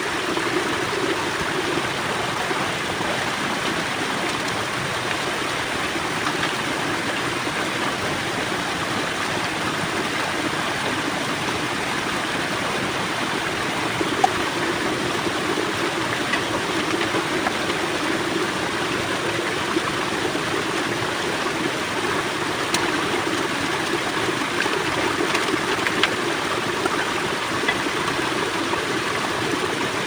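Small rocky stream running steadily over stones, an even rush of shallow water, with a few sharp clicks in the second half.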